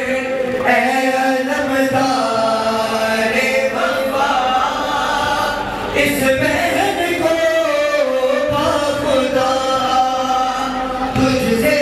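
Voices chanting a Shia mourning lament (nauha) together, sung without a break.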